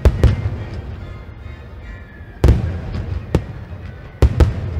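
Aerial firework shells bursting: two booms at the start, the loudest about two and a half seconds in, another a second later, and a quick run of three near the end, with rumbling echo between.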